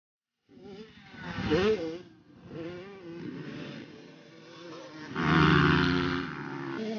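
Off-road race engines revving, starting abruptly about half a second in, with a loud rise and fall in pitch about a second and a half in and the loudest stretch about five seconds in.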